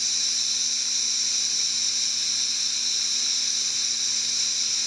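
Lawn sprinklers spraying water: a loud, steady high-pitched hiss.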